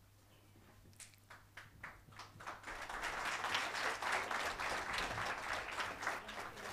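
A few scattered hand claps about a second in, building into steady audience applause.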